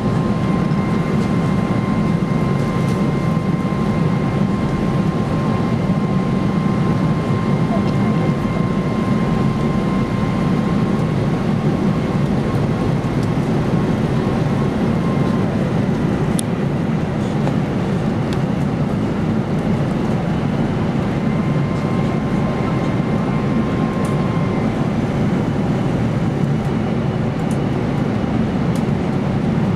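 Jet airliner cabin noise on final approach: a steady roar of engines and airflow, with a thin high whine for about the first fifteen seconds and again briefly later.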